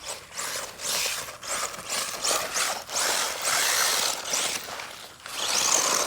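Traxxas 1/16 Slash RC truck driving over construction-site rubble, its motor and drivetrain whirring in surges as the throttle comes on and off, with the chassis and tyres rattling and scrabbling over the rocks.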